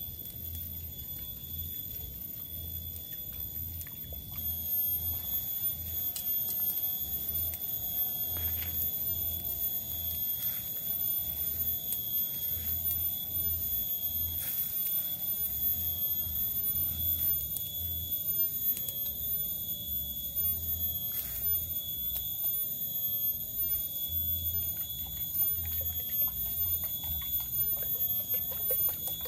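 Steady high-pitched insect drone held on one pitch, with fainter overtones above it, over a low background rumble that gets louder about four seconds in; a few faint clicks.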